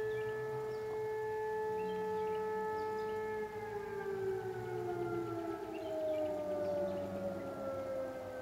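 Distant Sterling M-10 8/16-port fire siren holding a steady chord-like wail. About three and a half seconds in it starts to wind down, its pitch falling slowly, with the sound echoing back off the hills.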